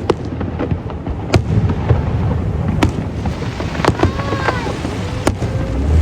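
Fireworks going off: sharp bangs about once a second over a continuous crackle and low rumble, with a few short whistling tones around four seconds in.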